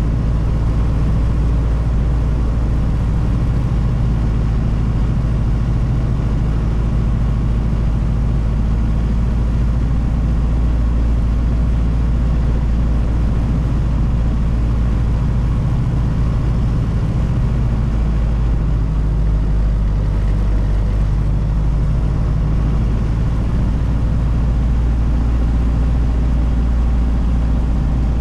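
1932 Ford Model B's four-cylinder engine running steadily under way, heard from inside the cab along with road noise.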